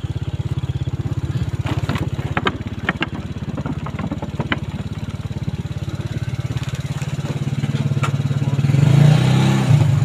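Motorcycle engine running steadily while being ridden, with a few sharp rattling knocks about two to four seconds in. The engine gets louder near the end.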